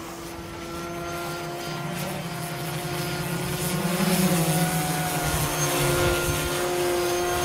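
RC model aircraft motors and propellers buzzing with a steady pitch, growing louder over the first few seconds as a model comes closer.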